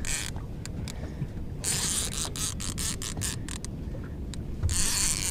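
Fishing reel being cranked against a hooked fish, a run of quick clicks around the middle, over a steady low rumble with short bursts of hiss.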